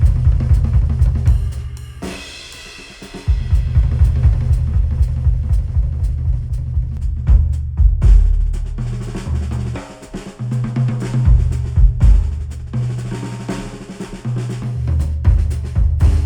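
Instrumental music with a drum kit and a heavy bass line, played back through Sennheiser headphones and picked up by microphones at the headphone. About two seconds in, the bass and drums drop out for about a second, then the beat comes back.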